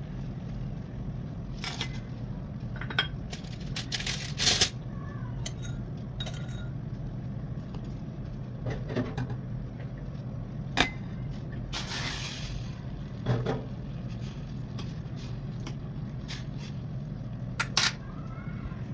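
Kitchen utensils and dishes clinking and knocking now and then, the loudest a few seconds in, over a steady low hum.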